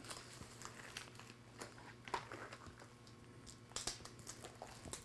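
Faint crinkling and light ticks of duct tape being pressed and smoothed down by hand along the edge of a rubber car-mat blade, over a low steady hum.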